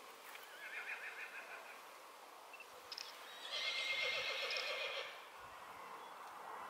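A horse whinnying twice: a softer quavering whinny near the start, then a louder, fuller one a little past the middle.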